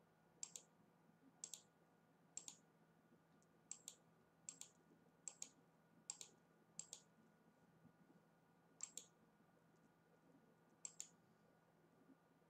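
Faint, sharp clicks, about ten of them at irregular spacing of roughly one a second, many coming as quick doubles like a press and release, over a faint steady hum.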